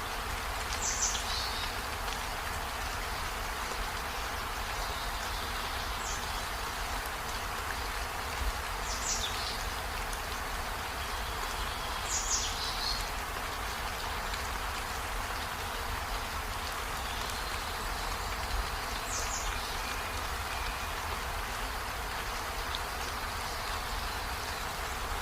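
Steady rain with an even hiss. Five brief high chirps, each falling in pitch, sound at irregular intervals over it.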